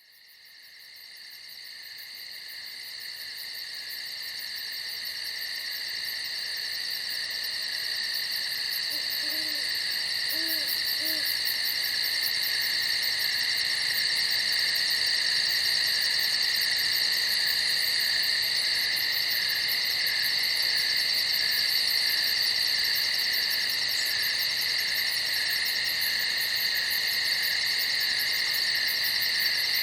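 A night chorus of crickets chirping steadily at a high pitch, fading in from silence over the first several seconds. A few faint, low calls come through about ten seconds in.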